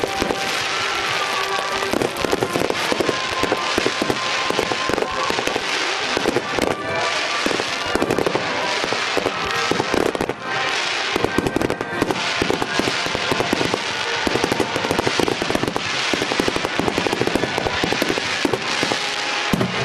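A rapid barrage of fireworks shells bursting, many bangs and crackles packed closely together without a break.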